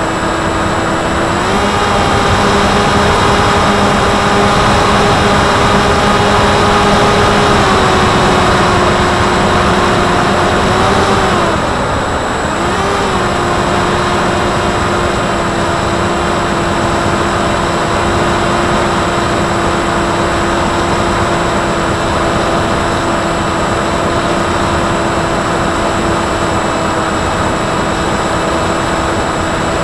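Electric motor and propeller of a HobbyKing Falcon Wing flying wing in flight, heard from its onboard camera: a steady hum over the rush of air. The pitch steps up about a second and a half in, drops back around eight seconds, dips and comes back around eleven to thirteen seconds as the throttle is eased and reopened, then holds steady.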